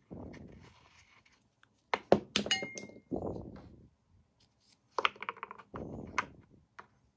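Hard plastic clicks and clinks as the red timer knob of a Bodum electric coffee grinder is pulled off its shaft and pushed back on, with handling rubs between. There are two bunches of sharp clicks, one about two seconds in, the loudest, with a brief ring, and another about five seconds in.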